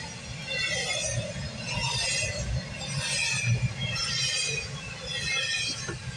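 Double-stack intermodal freight train passing, heard from inside a parked car: a steady low rumble of the cars rolling over the rails, with a high hissing, squealing wash that swells and fades about once a second.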